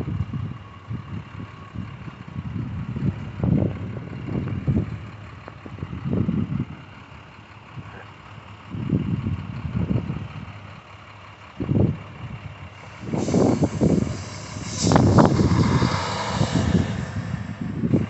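Blizzard wind buffeting the microphone in irregular gusts, over the running of snowplow trucks. About two-thirds of the way through, a louder hissing rush joins in.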